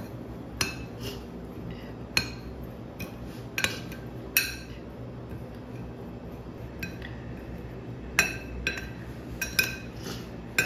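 Metal spoon stirring a dry flour and spice mix in a ceramic dish, with repeated sharp, irregular clinks as the spoon strikes the dish.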